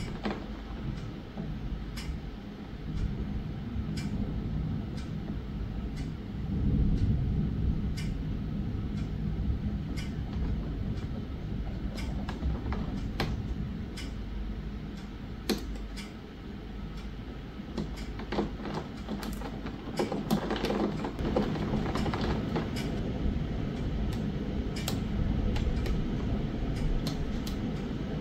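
Rain shower with thunder rumbling low and swelling twice, about six seconds in and again from about twenty seconds. Scattered sharp ticks of raindrops striking the window run throughout.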